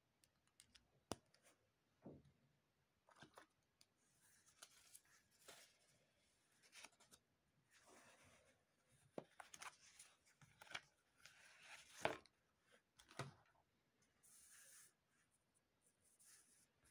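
Faint handling sounds: a pen cap clicking shut about a second in, then a sheet of paper rustling and sliding across a tabletop, with scattered small taps and clicks.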